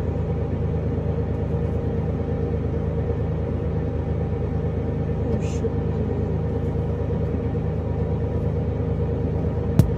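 Loader engine running steadily, a low, even rumble heard from inside the cab, with one sharp knock near the end.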